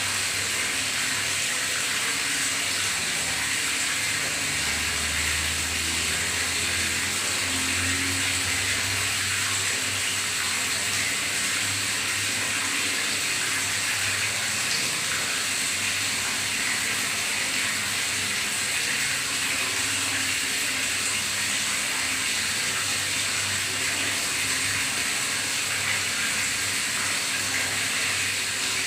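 Noisy gurgling of water in a bathtub: a steady rushing hiss with uneven low gurgles underneath, heaviest about five to nine seconds in.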